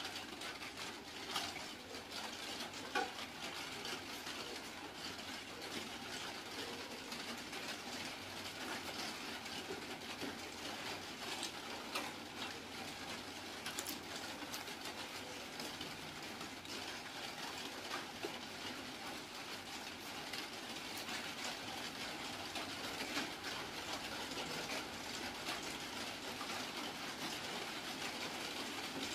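Soft eating sounds: bread being torn apart by hand and chewed, heard as scattered small clicks and crackles over a steady hiss.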